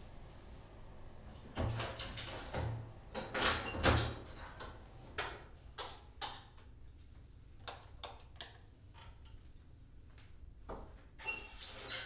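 Scattered short knocks, clicks and rubs of someone moving about a small tiled bathroom and handling things, loudest about two to four seconds in, with a door sound and a brief squeak near the end.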